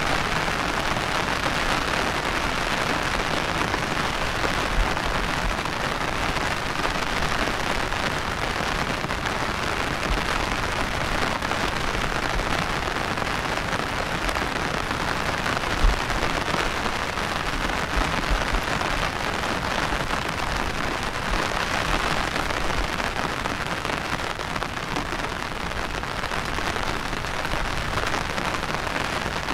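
Steady monsoon rain falling, an even hiss of many drops. A couple of brief low bumps stand out, about five seconds in and again about halfway through.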